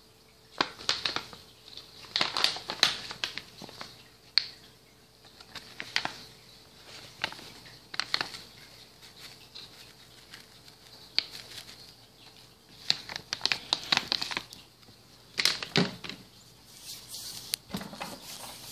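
Dried catnip leaves crackling and rustling in irregular bursts of quick, crisp clicks, as a cat noses and chews at loose catnip.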